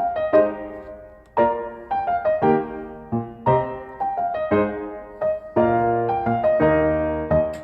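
Background piano music: a light melody of struck notes and chords, a new phrase about every second.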